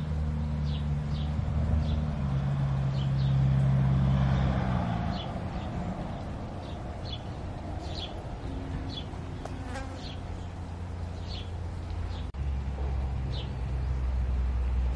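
Outdoor garden ambience: a low buzzing drone that stops about five seconds in and comes back near the end, under short high bird chirps repeated irregularly throughout.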